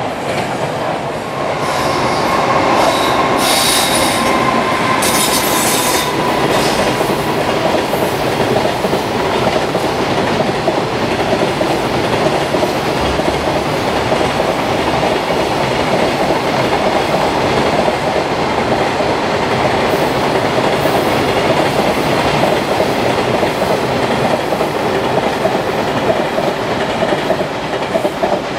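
Long container freight train running through at speed, its wheels rolling and clattering steadily over the rails. A few brief high-pitched squeals come about three to six seconds in.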